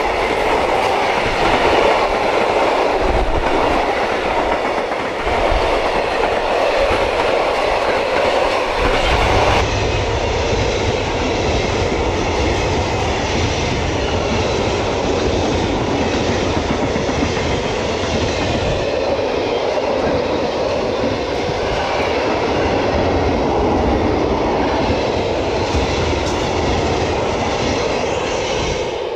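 A train running close by on the line, its wheels clicking and rumbling over the rails. The sound changes abruptly about ten seconds in, taking on a deeper rumble.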